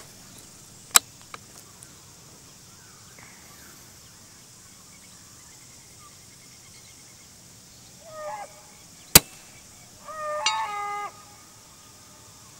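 A single shot from a Sako Quad bolt-action .22 LR rifle firing subsonic ammunition: one sharp report about nine seconds in. Short bird calls come just before and just after it.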